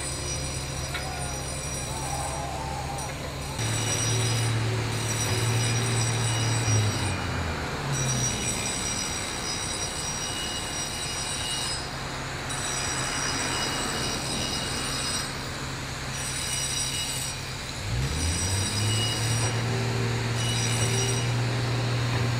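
Electric angle grinder grinding a concrete wall: a steady high whine with a rasping grind, easing off about a third of the way in and picking up again near the end.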